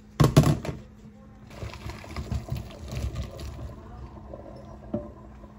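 Boiled potatoes and their hot water poured from a pot into a plastic colander in a stainless steel sink, splashing for about two seconds. A loud clatter comes just before the pour and a small knock near the end.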